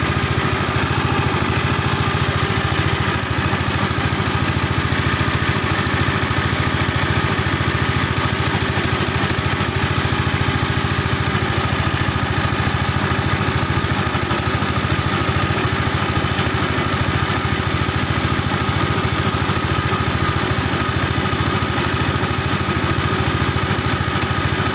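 Small boat engine running steadily as the wooden motorboat moves along, with water rushing past the hull.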